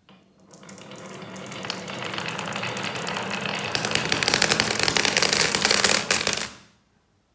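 A large number of marbles rolling and clattering down a marble run track together, a dense rattle of clicks that builds steadily louder for about six seconds and then cuts off quickly.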